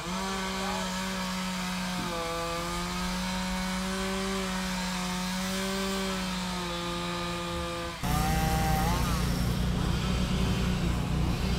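A small engine running at a steady speed. About eight seconds in it changes suddenly to a louder, rougher engine sound with a short rise in pitch.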